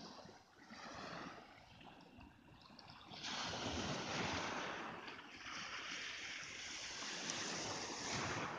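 Sea surf washing over a pebble beach: a steady hiss of waves that swells about three seconds in.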